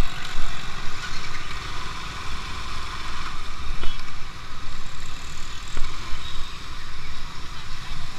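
Motorcycle engine running with steady wind and road noise while riding, picked up by an action camera on the moving bike.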